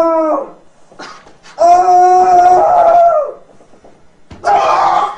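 Long, loud howls held on one steady pitch: one ends about half a second in, a second lasts nearly two seconds, and a sudden noisier burst of sound starts near the end.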